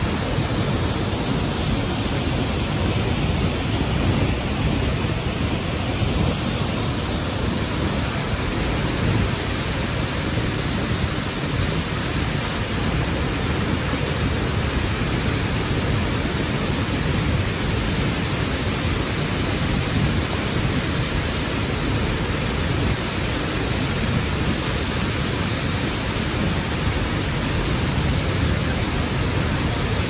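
Waterfall plunging into a pool: a steady, unbroken rush of falling water, heaviest in its low rumble.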